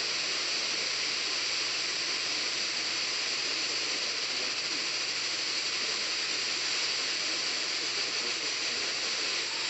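Steady hiss of radio static from a receiver with no clear signal, even and unchanging throughout.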